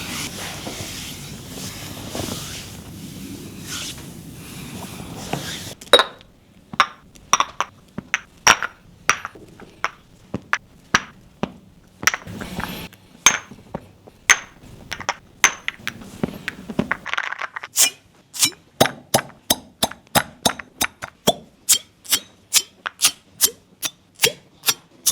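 Copper cupping cups clinking and tapping in a run of sharp, ringing clicks, about two a second and then about three a second for the last several seconds. Before that there is a steady rushing noise that cuts off suddenly about six seconds in.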